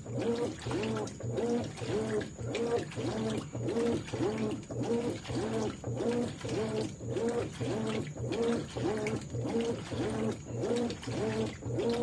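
Consul 13 kg top-load washing machine (CWE13AB) agitating a full load of clothes in water: the agitator swings back and forth about three times a second, each stroke giving a whine that rises and falls in pitch, in a steady rhythm.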